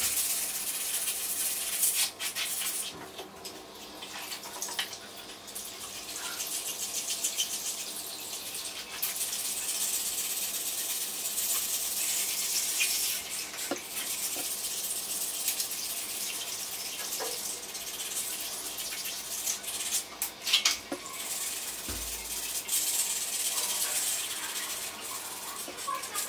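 Wet scouring pad scrubbing a copper-clad circuit board on a wet tile floor, a steady rasping hiss with brief pauses. The pad is rubbing the black toner off the copper traces.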